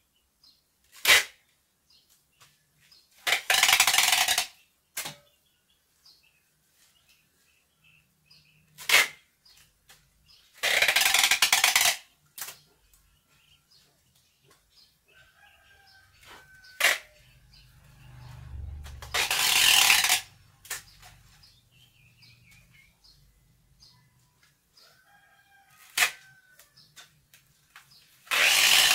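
Adhesive tape being pulled off the roll in four loud rips of about a second each, with a few sharp clicks between, as it is wound around a plastic-wrapped root ball.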